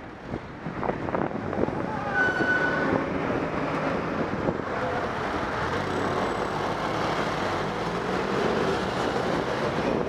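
Road traffic noise on a city street, with a motorcycle engine running close by. About two seconds in, a brief steady high tone sounds for under a second.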